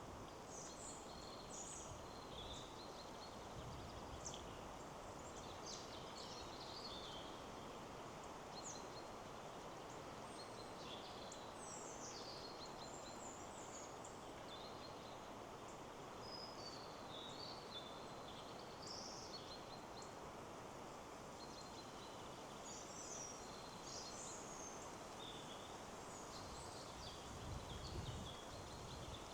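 Small songbirds chirping and twittering in short phrases over a steady rush of wind in the trees, with a low gust swelling near the end.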